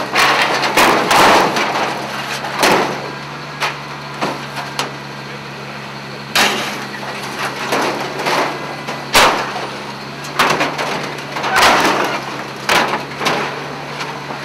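Irregular knocks and clattering, about nine in all and spaced unevenly, over a steady low hum.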